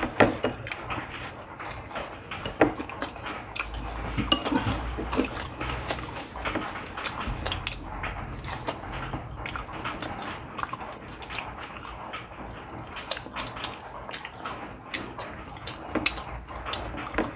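People eating at the table: chewing and mouth sounds with scattered irregular clicks of chopsticks and dishes.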